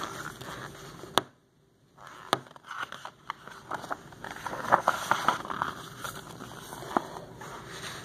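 Paper rustling and crackling as a large picture book is handled and a page is turned, with a few sharp clicks.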